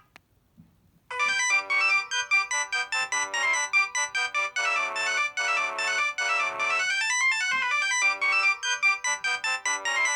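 A preloaded ringtone on a Mobiwire Aponi mobile phone: a quick melody of short, separate notes that rises and falls, starting about a second in after a brief silence.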